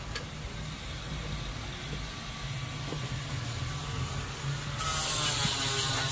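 Engine idling steadily with a low rumble; about five seconds in a loud hiss starts and continues.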